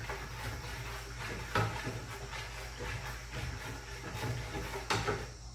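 Water in a bucket being stirred with a rod, a continuous swishing with a few knocks of the rod against the bucket, mixing detergent into an electrolysis bath.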